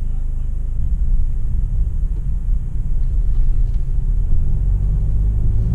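Low, steady rumble of engine and road noise inside the cabin of a Mercedes-Benz GLE 300d, a 2.0-litre four-cylinder diesel SUV, driving slowly.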